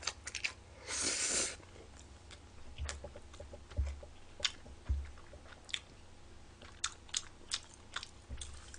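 A man slurping in a mouthful of stir-fried ramen noodles about a second in, then chewing, with scattered small clicks.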